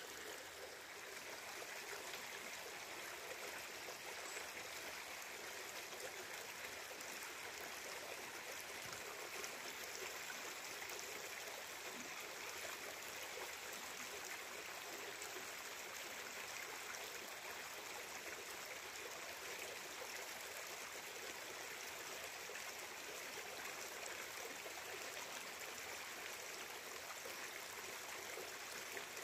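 Running water: a steady, unbroken rush, as of a stream.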